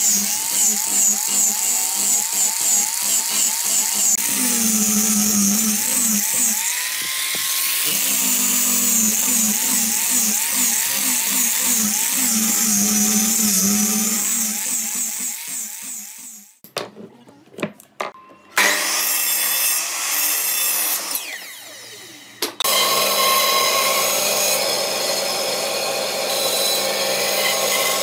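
Angle grinder with a sanding disc sanding pine, its motor pitch wavering as the disc is pressed into the wood. After a few seconds of broken, quieter sound, a band saw runs steadily through to the end.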